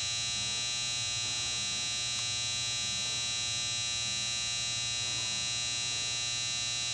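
Hydraulic power unit of a Marvel 81A vertical band saw running: a 10 hp electric motor driving a Rexroth hydraulic pump, giving a steady low hum under a high whine.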